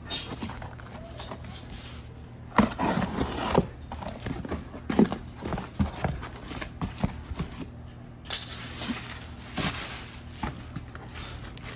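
Irregular knocks and clinks of hands and tools working on metal parts at the truck's front wheel.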